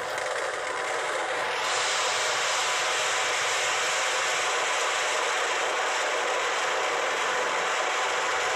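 Dense, continuous crackling of firecrackers going off inside a burning effigy, filling out and getting brighter about a second and a half in.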